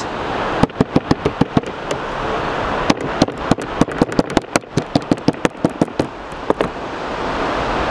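Metal meat-tenderizer mallet pounding small pieces of chokka squid bait on a plastic cutting board, in quick sharp knocks. There is a short run of strikes, a pause about two seconds in, then a longer run at about four or five strikes a second. Steady surf hiss underneath.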